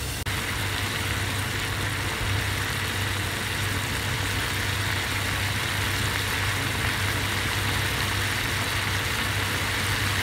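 Pot of hibiscus, cloves and red garlic in water simmering on low heat: a steady hiss of boiling over a low hum.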